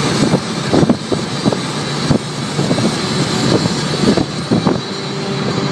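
A car driving at speed, heard from inside the cabin: steady road and engine noise with frequent short knocks mixed in.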